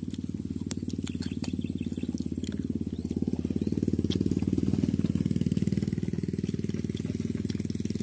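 A small engine running with a fast, even pulse, growing louder toward the middle and easing off a little near the end. A few light crisp clicks sit over it.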